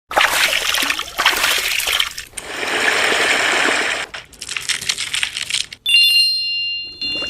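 ASMR makeup handling sounds: a run of crackly, rustling and hissing stretches, each a second or two long, then about six seconds in a bright ringing chime of several high tones that holds on.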